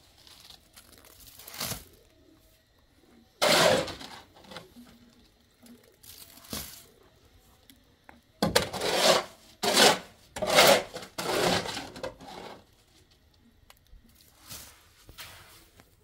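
A shovel scraping and spreading wet concrete in a channel: a series of separate rough scrapes, each under a second, with four coming close together about halfway through.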